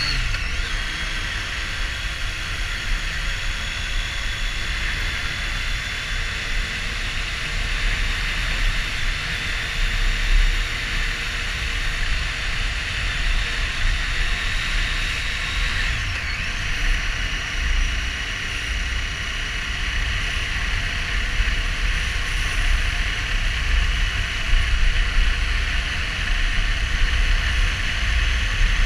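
Triumph Street Triple R motorcycle's inline three-cylinder engine pulling along at a steady speed, heard with wind rumble on the camera microphone. The engine note drops right at the start, as after an upshift, and changes pitch again about halfway through.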